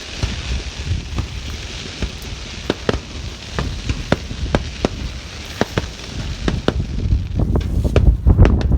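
Fireworks crackling: a rapid, irregular string of sharp cracks and pops over a hiss, growing denser and louder near the end.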